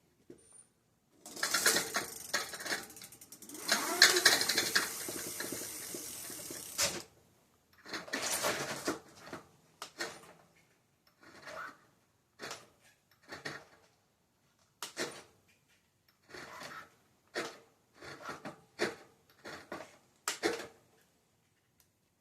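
Funhang e-bike motor run in bursts, making a grinding noise: one long run of about six seconds, then a string of short bursts about a second apart.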